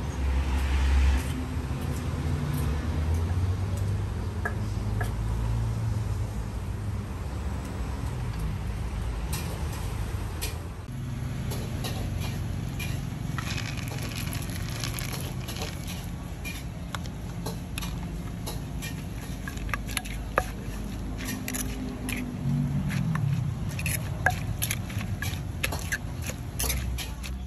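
Steady low traffic rumble with many irregular light clicks and knocks from food preparation at a street stall, denser in the second half.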